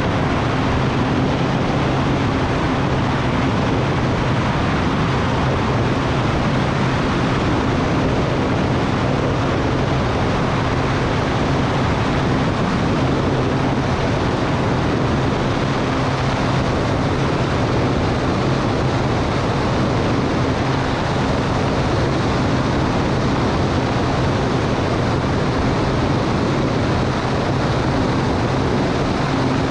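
Cessna 210 Turbo Centurion's turbocharged six-cylinder Continental engine and propeller running steadily at a constant pitch, with a rush of air noise.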